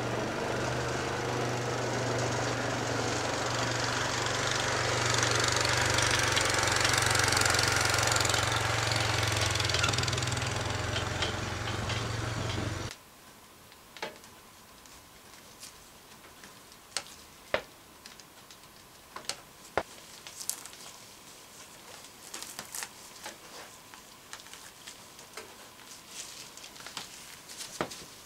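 A small engine running steadily, cutting off abruptly about 13 seconds in. After that, quiet with scattered small clicks and snaps as a squirrel is skinned by hand.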